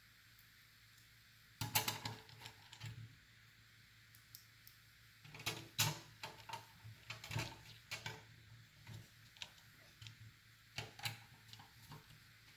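Clicks, taps and light knocks of a metal SFX-to-ATX bracket and an SFX power supply being handled and fitted together. They come in three clusters: about a second and a half in, from about five to eight seconds in, and once more around eleven seconds.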